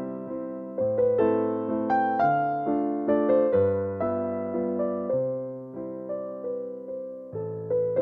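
Background piano music: a slow, gentle melody of struck notes, each fading away, over lower bass notes.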